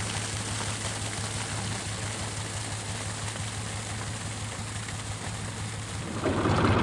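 Diesel engine of an IHC 383 tractor running steadily at a distance, pulling a slurry tanker. About six seconds in, the engine sound becomes much louder and closer.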